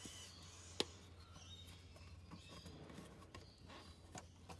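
Near silence with faint handling noise of fingers working a plastic air-suspension line at its brass fitting, and one sharp click a little under a second in.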